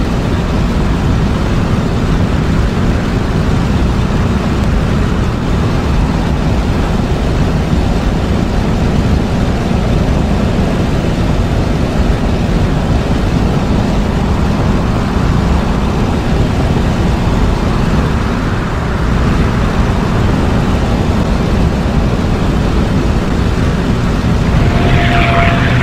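Propeller-driven piston aircraft engine running steadily in flight, a dense rumble with a fast pulse. Near the end a new steady higher tone joins in and the sound gets a little louder.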